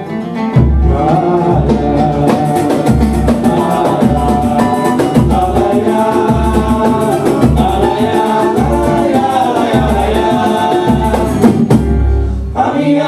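Live Brazilian acoustic band playing the opening of a song: acoustic guitars and percussion over a deep drum beating about every three-quarters of a second.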